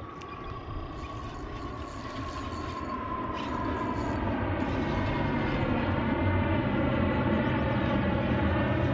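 A distant engine, growing steadily louder, its hum sinking slightly in pitch as it comes closer.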